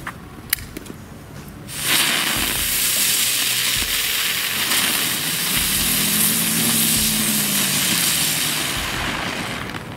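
Small Category 1 ground fountains burning together with a loud, steady hiss of spraying sparks. The hiss starts suddenly about two seconds in and fades near the end.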